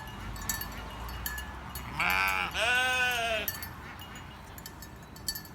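A ewe bleating once, about two seconds in: a wavering call of about a second and a half that dips in pitch and then rises and falls.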